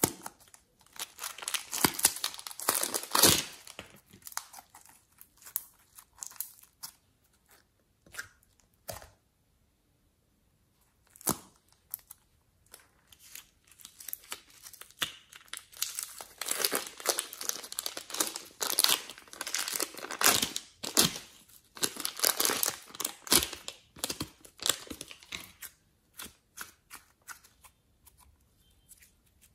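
Close crinkling and tearing handling noise in bursts, with quiet gaps of a few seconds. The busiest stretches come in the first few seconds and again through most of the second half.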